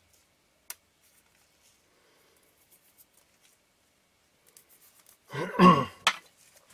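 Light clicks and ticks of metal lens parts being handled, with one sharp click a bit under a second in. Near the end comes a short, louder vocal sound from the person, like a throat clear or a sigh, then another sharp click.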